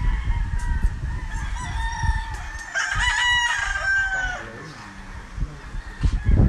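Gamecocks crowing across the field, several overlapping, with one strong crow about three seconds in that trails off downward. A low rumble runs underneath.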